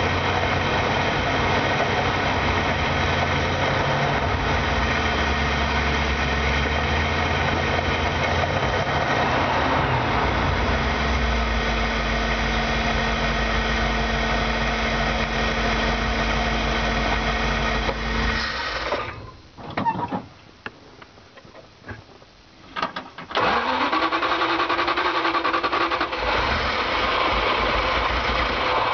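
Carbureted van engine warming up after being flooded, heard from inside the cab with the engine cover off. It runs steadily, dies about two-thirds of the way through, and after a few quieter seconds with a couple of clicks it is started again and keeps running.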